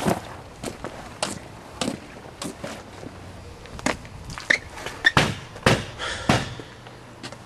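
Footsteps on a hard surface, a steady walking pace of about one and a half steps a second, louder over the last few seconds.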